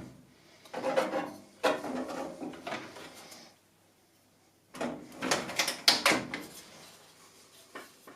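Hands handling computer parts during a PC build: two bursts of knocks, clicks and rubbing, with a short quiet gap between them.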